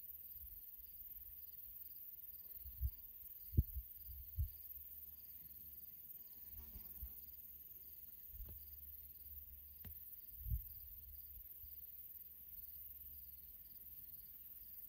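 Faint field ambience: insects chirping in a steady, evenly repeating pattern, with a few short, dull low thumps, the loudest about three and a half seconds in.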